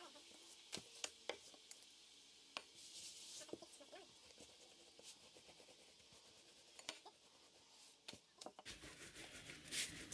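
Faint rolling and rubbing of a wooden rolling pin pressing dough out thin on an oilcloth-covered table, with scattered light clicks and knocks.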